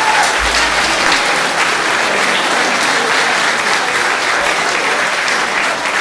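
Audience in a hall applauding steadily after a sung song.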